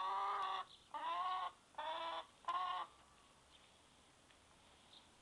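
A hen singing: a long drawn-out call, then three shorter calls about a second apart.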